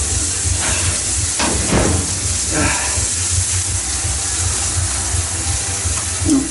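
Fries frying with a steady sizzling hiss.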